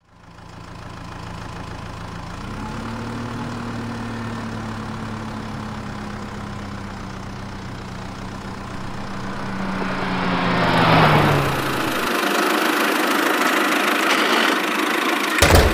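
Vehicle engine running steadily, its pitch rising slightly a couple of seconds in. About ten seconds in a hissing rush swells up and the engine hum cuts off, leaving a steady hiss and a sharp click near the end.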